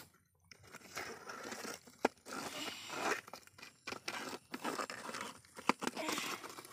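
Wet mud scraped and shoved by a hand-pushed plastic toy bulldozer onto a toy trailer bed, in irregular crunchy scraping bursts with a couple of sharp plastic clicks.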